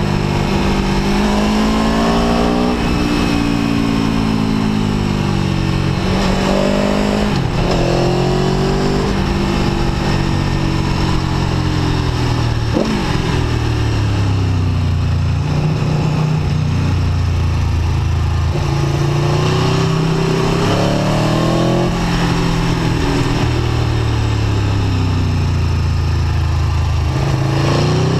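Aprilia Tuono V4 1100 RR's 65-degree V4 engine heard from the rider's seat, its pitch climbing and falling repeatedly as the bike accelerates, shifts gear and rolls off through bends. Wind rush runs under the engine note.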